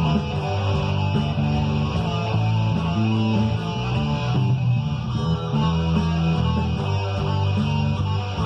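Guitar played over a rock backing track with bass and a steady beat.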